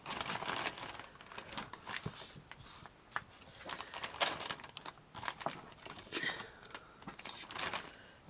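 Paper cards and packaging being handled, giving irregular rustling and crinkling with small crackles and taps.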